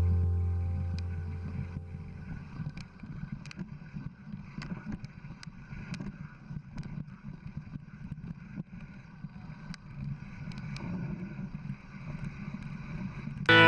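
Mountain bike rolling down a loose gravel and rock trail: tyres crunching over stones, with scattered sharp clicks and knocks, and wind rumbling on the microphone. Piano music fades out in the first couple of seconds and other music starts abruptly just before the end.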